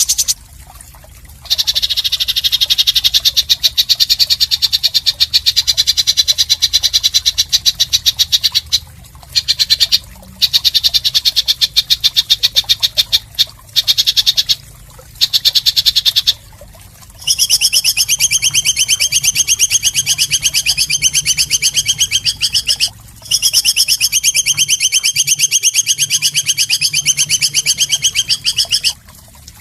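Harsh, very rapid pulsing buzz from a bird, a 'mbeset' fill sound used to tutor competition songbirds. It comes in long runs of a few seconds with brief breaks, and turns steadier and more evenly banded about halfway through.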